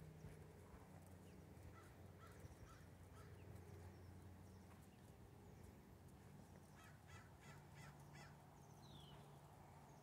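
Near silence: a faint low hum with scattered faint bird calls, a quick cluster of them about seven seconds in.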